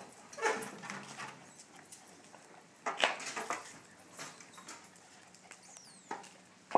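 Dogs playing, making a few short dog sounds: one about half a second in, a louder cluster around three seconds in, and smaller ones later, with quiet gaps between.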